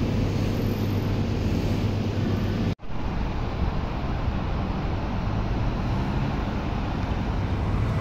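Steady low rumble of background noise, broken by a sudden momentary dropout about three seconds in.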